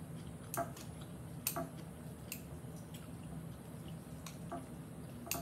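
A metal fork clicking lightly against a glass bowl as it picks through noodles and vegetables, about seven scattered clicks, over a faint steady low hum.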